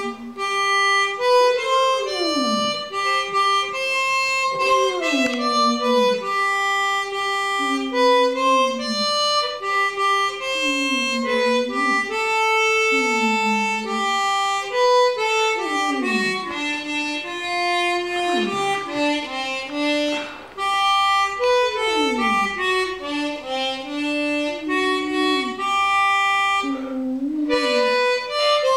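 Harmonica playing a slow tune in held chords, with a dog howling along in repeated long wails that slide down in pitch.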